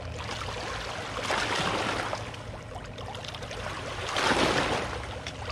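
A hooked fish splashing and thrashing at the water surface as it is fought on the line. The splashing swells twice, about a second in and again around four seconds in.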